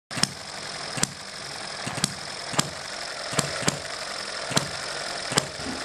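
Eachine ETX (M91) vertical water-cooled hit-and-miss model engine running. It fires with sharp pops at uneven gaps, eight in about six seconds, and coasts between firings over a steady mechanical clatter.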